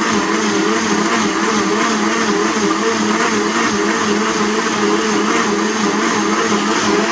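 Blendtec 1475-watt blender running at full speed on its smoothie cycle, blending a full jar of smoothie: a steady, loud whir with a slightly wavering motor hum underneath.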